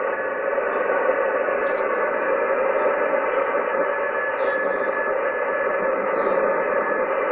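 HF radio receiver playing a steady hiss of static, with a thin Morse code tone keying on and off in dots and dashes underneath. Around six seconds in, a quick run of four short high beeps sounds over it.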